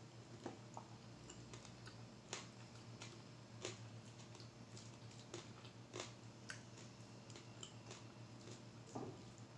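Faint eating sounds of fried salmon: irregular soft clicks of chewing and mouth noises, about one every second, over a low steady hum.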